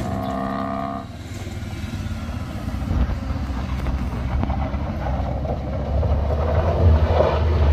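Mitsubishi L300 pickup's engine running under load as it climbs a rough gravel slope, growing steadily louder as it approaches. A brief steady tone sounds for about a second at the start.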